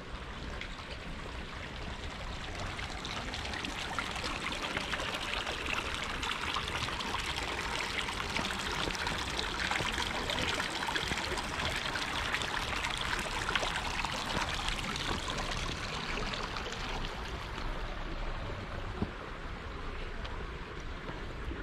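Running water: a steady rushing of water that grows louder toward the middle and fades in the last few seconds.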